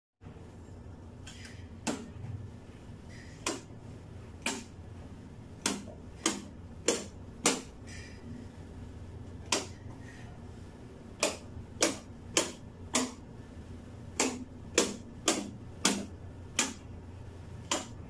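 Wall-mounted light switches, a master switch and three-way switches, being clicked on and off one after another: about eighteen sharp clicks at an uneven pace, over a faint low steady hum.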